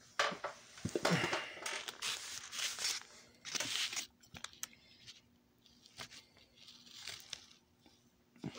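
Loud crunching and rustling right at the phone's microphone for the first four seconds, then softer scattered crunches and clicks: raw broccoli being chewed and the phone being handled.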